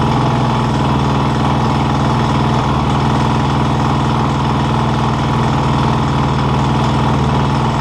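KTM 530 EXC supermoto's single-cylinder four-stroke engine idling steadily on its first run after a piston change.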